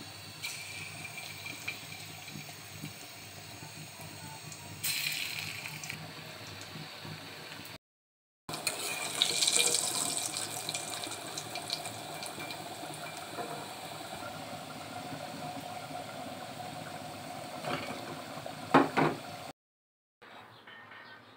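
Lentil-and-onion fritters deep-frying in hot oil in an iron karahi: a steady sizzle with crackling, with a few knocks of a metal spatula against the pan near the end.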